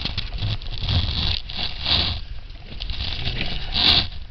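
Car cabin noise while rolling slowly down a steep snow-covered hill: a low rumble from the tyres and engine, with scattered crackles from the tyres on packed snow. Two louder hissing swishes come about two seconds apart.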